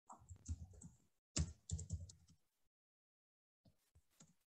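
Computer keyboard being typed in two short runs of quick, quiet key taps, then a pause and a few fainter taps near the end.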